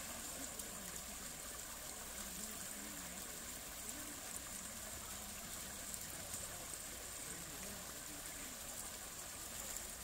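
Shallow rocky stream running steadily, water spilling in small cascades over and between boulders.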